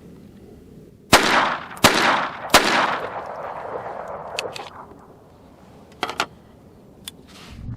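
Walther P22 Q .22 LR pistol firing three shots of CCI 36-grain hollow-point ammunition, about two-thirds of a second apart, each followed by a fading echo. Two faint clicks follow later.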